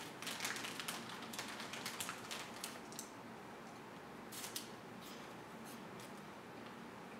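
Crinkling of a Cheetos Puffs snack bag as a hand rummages in it, then crisp crunching of puffs being eaten: a quick run of small crinkly clicks for the first three seconds, a short burst about four and a half seconds in, and a few scattered crackles after.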